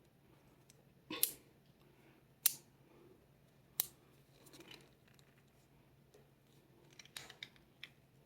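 Sharp clicks from the numbered dials of a cheap four-digit combination bike lock being turned by hand while the code is probed. There are three distinct clicks about a second and a quarter apart, then a quicker run of lighter clicks near the end.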